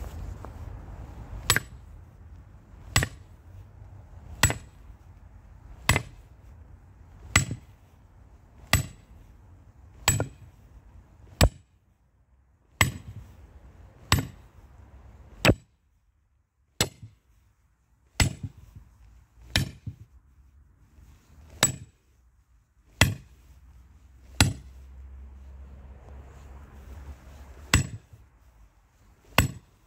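Sledgehammer striking a steel splitting grenade (cone-shaped wedge) set in an ash log, giving sharp metal-on-metal clanks with a brief ring. There are about twenty blows, one every second and a half or so, with a pause of a few seconds near the end.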